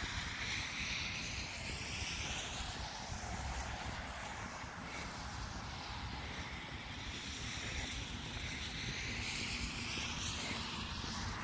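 Steady outdoor rushing noise with a hiss that sweeps slowly up and down in pitch.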